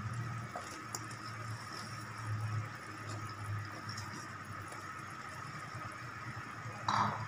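Tom yam broth simmering in a stainless steel pot, a steady bubbling with a low hum under it. A brief louder sound comes near the end.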